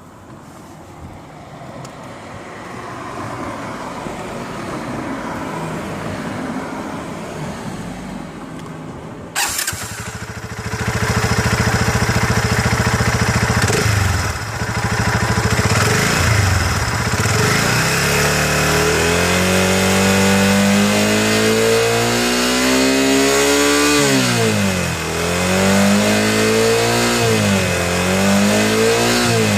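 Motorcycle engine running and then revved up and down several times, the pitch climbing and dropping again, in a test of whether a metallic knocking at 6000 to 7000 rpm is gone. A sharp click comes about nine seconds in, after which the engine is louder.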